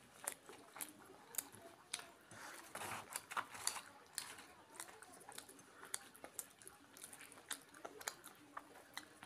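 Close-miked chewing of deep-fried kochuri, full of short sharp mouth clicks. Fingers tear the fried bread in the middle.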